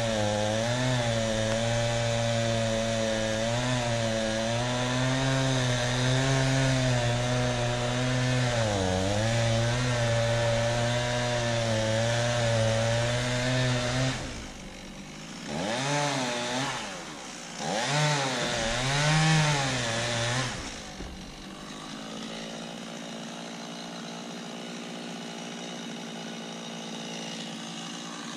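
Chainsaw running at high revs and cutting through a log, its pitch wavering and dipping as it loads in the wood. About halfway through it comes out of the cut, is blipped twice, rising and falling in pitch each time, then drops to a quieter idle.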